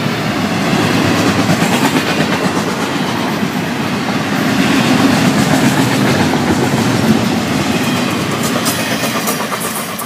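Florida East Coast Railway double-stack intermodal freight train rolling past, the wagons' steel wheels running steadily on the rails. The sound eases off near the end as the last cars go by.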